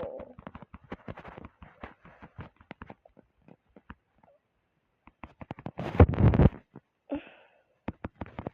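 Light scattered clicks and taps, then about six seconds in a single short, loud sneeze.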